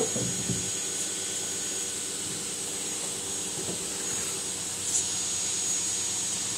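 Steady high-pitched hiss with a thin, faint high whine in it, and a few brief soft scuffs.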